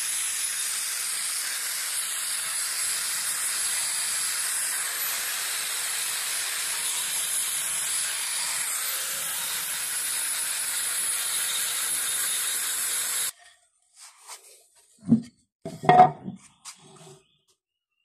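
Electric angle grinder running under load, grinding out the fibrous inside of a hollowed kithul palm log: a steady high whine over a hiss that cuts off abruptly about 13 seconds in. A few short knocks follow as a wooden board is handled against the log.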